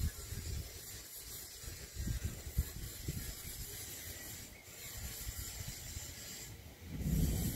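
Wind outdoors: a steady hiss with a couple of low gusts buffeting the microphone about two seconds in.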